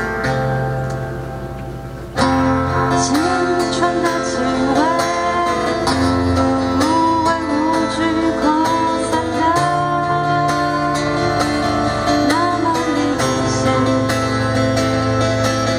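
A song performed live on acoustic guitar with a lead melody line. The music fades on a held chord, then comes back in loudly about two seconds in, with the lead melody scooping and sliding over the guitar accompaniment.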